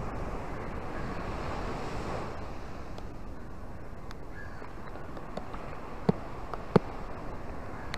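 Small surf washing up onto a sand beach and around rocks: a steady wash of waves that swells in the first couple of seconds, with a low rumble of wind on the microphone. A few sharp taps stand out, the loudest two about six and seven seconds in.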